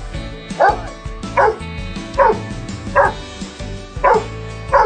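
Dog barking: six short barks, about one a second or a little faster, over background music.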